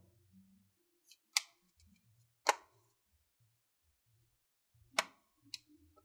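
Snap-in clips of an HP Envy 13 laptop's bottom cover releasing as a metal guitar pick pries the cover away from the palm rest: three sharp tiny clicks spaced a second or more apart, with a fainter one just after the last. The clicks are the sign that the clips are letting go.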